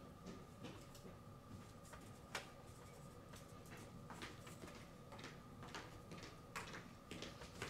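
Faint, sparse clicks and taps of small screws and a metal panel frame being handled as the screws are fitted by hand into a stained-glass light shade, over a faint steady hum.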